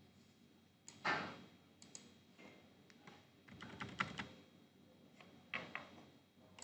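Scattered key taps and clicks on a computer keyboard and mouse, coming in irregular clusters, loudest about a second in and again around four seconds in.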